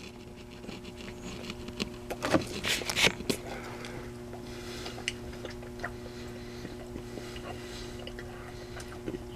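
A person chewing and eating, with a cluster of crackles and smacks about two to three seconds in and small clicks after, over a steady low hum.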